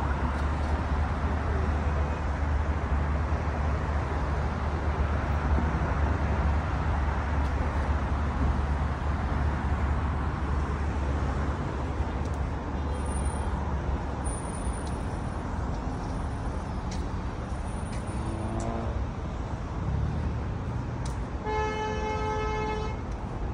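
Steady rumble of heavy, slow-moving highway traffic below. An engine note rises a few seconds before the end, then a car horn sounds once, for about a second and a half, near the end.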